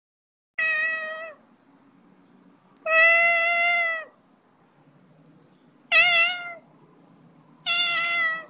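Siamese cat meowing four times, loud drawn-out calls a couple of seconds apart, the second the longest.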